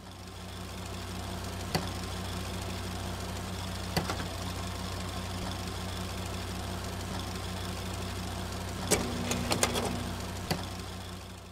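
A steady, low, mechanical hum like an idling engine, broken by a few sharp clicks: one about two seconds in, one about four seconds in, and a cluster near the end. The hum fades in at the start and fades out at the close.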